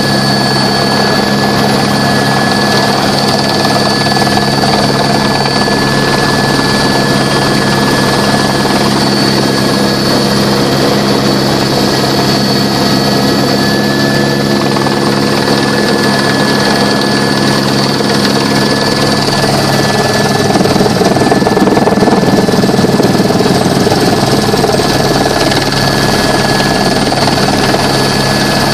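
Esquilo helicopter in flight, heard from inside the cabin: a steady high turbine whine over the drone of the rotor and gearbox. About twenty seconds in it grows a little louder, with more low rumble.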